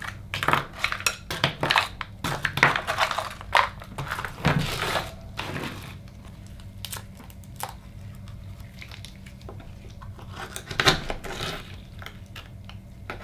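Oyster shells clattering against one another and a glass bowl as they are handled out of it, a quick run of sharp clicks. After that come quieter scrapes and clicks as a knife pries an oyster open on a wooden cutting board.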